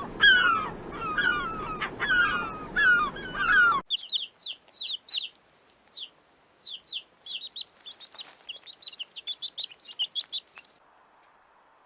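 Chickens clucking and calling, a string of repeated bending calls over background noise. About four seconds in it switches abruptly to a quick series of short, high chirps that stop about eleven seconds in.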